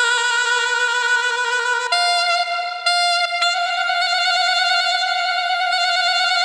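Yamaha PSR-S770 arranger keyboard playing a single-line solo voice: a few held notes, changing pitch three times in the first few seconds, then one long sustained note.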